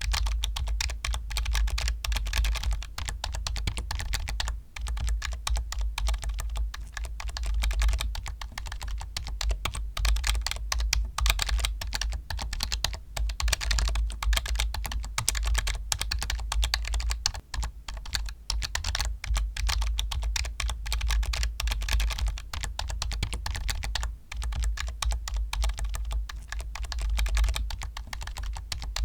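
Fast, continuous typing on a computer keyboard, a rapid run of key clicks with a few short pauses.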